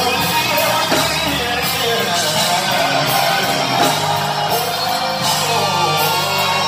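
Loud live gospel music from a church band, with guitar over a sustained bass line and repeated cymbal-like strikes.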